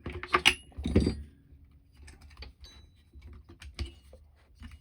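Small metal tools and parts clicking and clattering as they are handled, with a quick run of clicks in the first second and scattered single clicks after.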